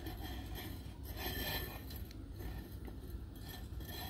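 Faint handling noise from a metal floor-stand pole being held and shifted in the hands: a soft rub about a second in and a few light clinks.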